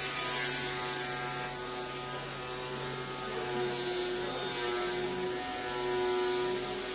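A steady mechanical hum with a hiss over it, the hiss strongest for the first two seconds.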